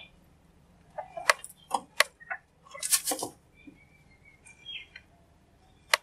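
House crow cawing: a run of short, harsh caws starting about a second in, the longest and loudest around the middle, then fainter calls.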